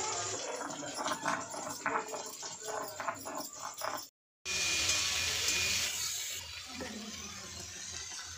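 Scattered short clicks and knocks as things are handled at a clay cooking stove. After a cut a little past the middle, a steady hiss of chopped okra frying in a wok, easing off after a couple of seconds.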